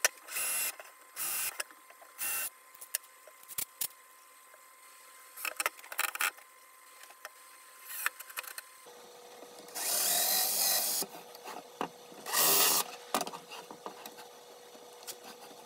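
Ryobi cordless drill run in short bursts to pre-drill pilot holes with a self-centering Vix bit and drive screws, fixing a drawer-slide track inside a plywood carcass. There are three quick bursts in the first couple of seconds, light clicks of handling, then a longer run about ten seconds in and another short burst.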